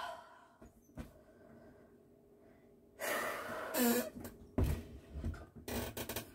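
A person's heavy breath with a short vocal sound, followed by several light knocks and clicks of objects being handled.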